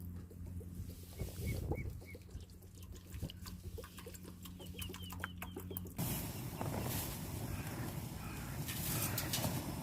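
Short, repeated bird chirps over a steady low hum and scattered clicks. About six seconds in, the hum stops abruptly and a louder, even noise takes over, with more faint chirps in it.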